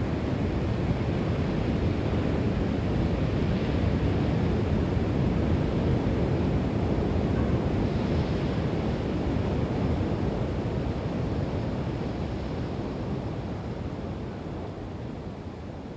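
Steady low rushing noise, like ambient wind or surf, fading gradually over the last few seconds.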